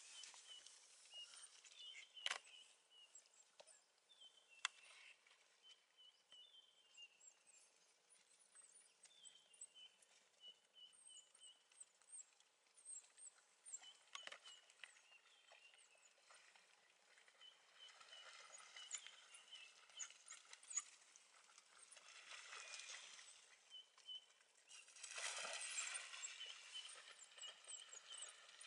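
Faint outdoor ambience: scattered short high chirping calls throughout, a few sharp clicks, and brief stretches of rustling noise in the second half, loudest near the end.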